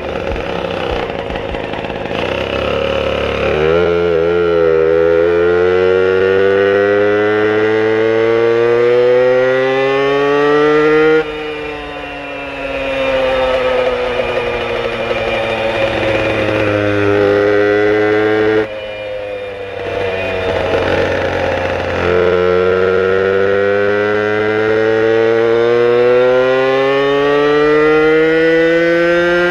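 Italkit-tuned Puch E50 two-stroke moped engine under way: its pitch climbs steadily as it accelerates, drops abruptly when the throttle is shut about a third of the way in and again a little past the middle, then climbs again toward the end.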